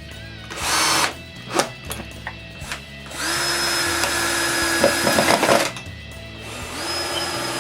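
Power drill running in bursts while drilling pocket holes and driving screws into birch pieces: a short burst just under a second in, a steady whining run of about two and a half seconds starting around the three-second mark, and another run starting near the end.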